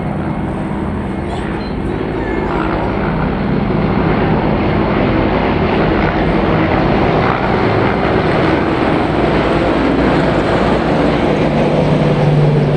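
Three military helicopters flying over in formation: rotor chop and engine noise that grows louder over the first few seconds and stays loud as they pass. A steadier low hum comes through near the end.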